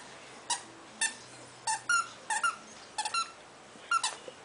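Squeaky dog toy being squeezed by a Pomeranian, giving about ten short squeaks at an uneven pace, several in quick pairs.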